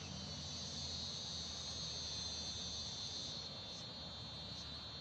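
Insects trilling steadily at a high pitch in a garden; a second, higher trill stops about three seconds in.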